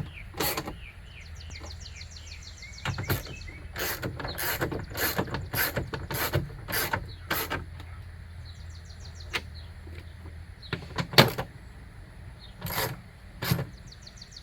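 Hand ratchet tightening window-regulator bolts: the pawl ticks rapidly on the back strokes, with a run of sharper clicks about twice a second in the middle and one louder metallic knock near the end.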